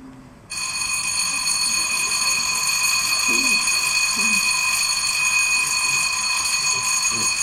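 An electric school bell ringing steadily, a continuous metallic jangle that starts suddenly about half a second in.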